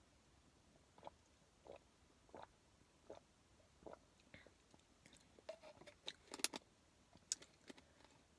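Faint swallowing as someone drinks Sunny D: soft gulps about every two-thirds of a second, then a few sharper clicks in the last few seconds.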